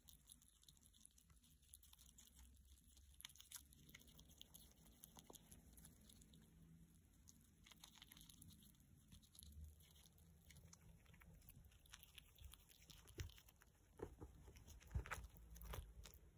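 Red squirrel nibbling and chewing something held in its front paws: faint, quick clicks of its teeth. Near the end, louder knocks and rustling as the phone is handled and moved.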